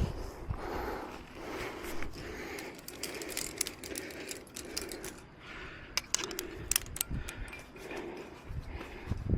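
Climbing hardware clinking: carabiners and quickdraws knocking together, with rustling as the climber moves, and a quick run of sharp metallic clicks about six to seven seconds in.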